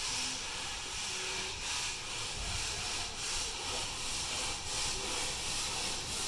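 Steam locomotive hissing steam as it comes up to the platform, with faint regular pulses about every three-quarters of a second.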